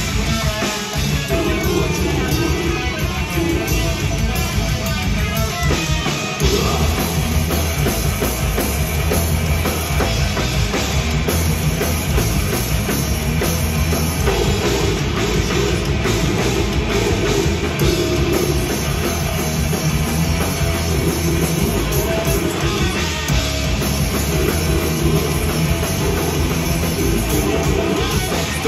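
Death metal band playing live: distorted electric guitars, bass guitar and a drum kit, loud and dense throughout, with brief breaks about a second in and about six seconds in.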